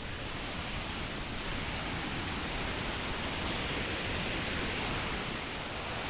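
Steady rushing roar of the Vinnufossen waterfall, heard through the trees, growing a little louder about a second or two in.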